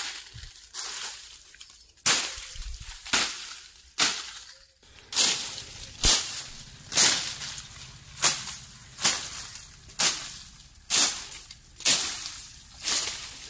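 Weeds and undergrowth on a pond bank being chopped down, a sharp swishing stroke about once a second from about two seconds in.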